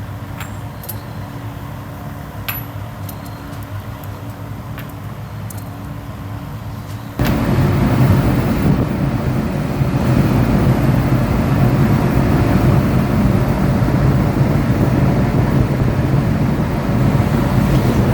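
A low steady machine hum with a few light metallic clinks, then about seven seconds in a much louder steady machine noise starts suddenly and keeps running.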